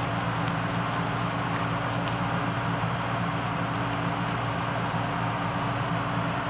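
Diesel engine of farm harvest machinery running at a steady speed: a constant, unchanging drone.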